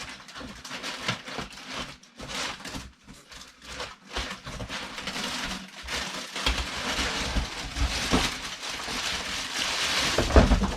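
Cardboard box and packing being handled and pulled apart: irregular rustling, scraping and crinkling with scattered knocks, growing busier in the second half, and a heavy thump near the end.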